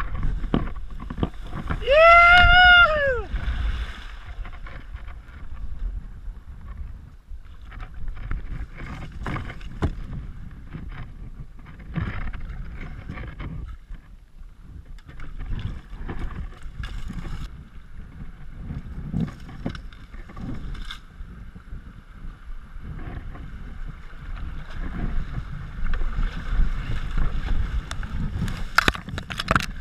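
Kayak paddle strokes splashing and dripping in a shallow river, with paddle knocks against the boat and running water. About two seconds in there is a loud pitched cry that rises and falls, and in the last several seconds the steady rush of faster water over a riffle grows.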